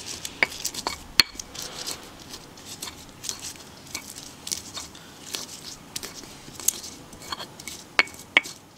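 Stone pestle crushing and grinding red curly chilies in a stone mortar (ulekan on cobek): irregular scraping and knocking of stone on stone as the chilies break up, with sharper knocks about a second in and twice near the end.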